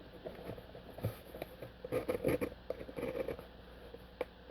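A cardboard shipping box being opened by hand, its packing tape slit with a set of keys: irregular scraping and rustling of cardboard and tape with scattered small clicks, busiest in the middle.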